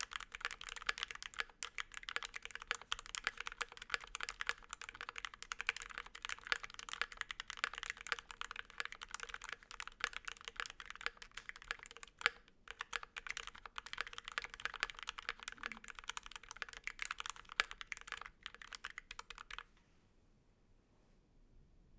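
Fast typing on a mechanical keyboard with stock, unlubed C3 Tangerine V2 67g linear switches on a brass plate and GMK keycaps: dense, quick key clacks with brief pauses. The typing stops a few seconds before the end, leaving faint room tone.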